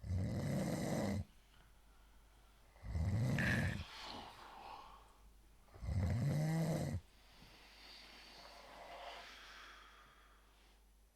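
A man snoring: three long snores, each about a second long and about three seconds apart, with softer breathing between them.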